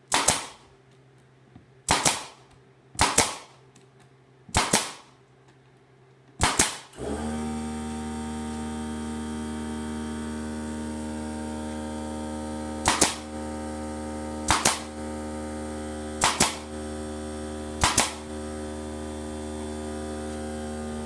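Pneumatic brad nailer firing brad nails into pine boards, nine sharp shots one to two seconds apart with a gap in the middle. About seven seconds in an air compressor kicks on and runs with a steady hum under the later shots, refilling its tank after the nailer's air use.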